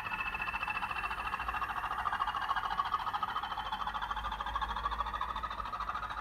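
Recorded Class 20 diesel engine sound played by a Zimo MX645P22 sound decoder through a model locomotive's small factory-fitted speaker, running under power with a fast steady throb and a high whistle rising steadily in pitch. The sound is thin, with almost no bass.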